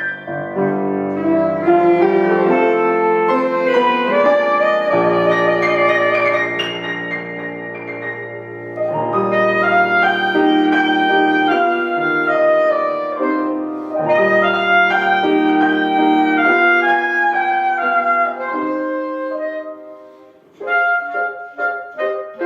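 A wind instrument, most like a clarinet, playing a sustained melody with piano accompaniment. About twenty seconds in the music drops away briefly, then resumes with short detached notes.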